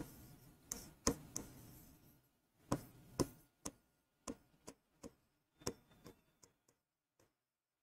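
Faint, irregular clicks and taps of a marker tip striking a writing board as words are written by hand, about a dozen over six seconds.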